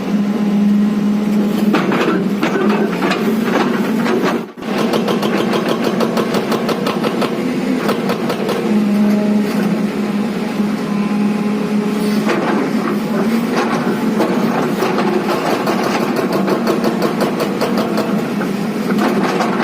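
Diesel engine of a JCB JS215 tracked excavator running steadily under work, with a dense rattle of clicks over the engine note. The sound drops out briefly about four and a half seconds in.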